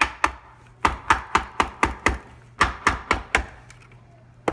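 Screwdriver handle tapping a plastic hoverboard shell into place: a run of sharp knocks, about four a second, in two bursts with a short pause between.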